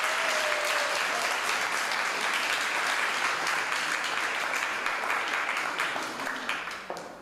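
Audience applauding steadily as a contestant is called up, the clapping dying away near the end.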